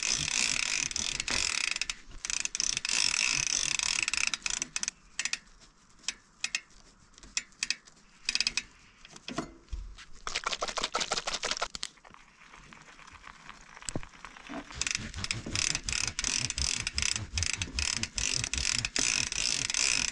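Propain Tyee mountain bike's drivetrain turned by hand: rapid ratcheting clicks of the rear freehub with the chain running over the cassette and derailleur. It comes in several runs of a few seconds, with quieter gaps between, as the chain is lubed and wiped with a towel.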